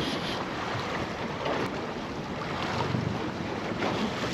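Wind buffeting the microphone over the wash of sea water around a fishing boat.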